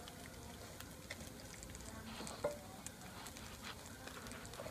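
Fish frying in oil in a pan, sizzling steadily with scattered crackles, while a metal spatula stirs and turns the pieces, giving a sharper clack about halfway through.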